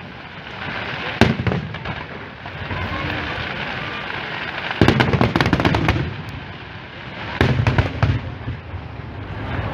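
Aerial firework shells bursting: a sharp bang about a second in, a rapid cluster of bangs and crackles about five seconds in, and another bang with crackling at about seven and a half seconds.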